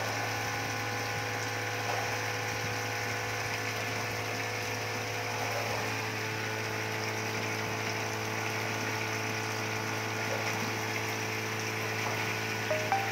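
Wastewater treatment plant machinery running steadily: a continuous mechanical hum with several held tones, over water churning in the treatment tank. A few short, louder pitched notes come near the end.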